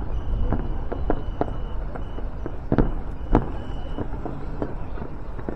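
Aerial fireworks going off in a rapid, irregular string of bangs, two louder ones about three seconds in, over a steady low rumble.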